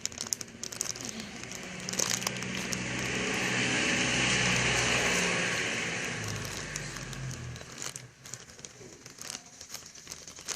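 Crinkling and crackling of plastic as a soda-drink squishy is handled close to a phone's microphone, with a long swell of rustling noise in the middle.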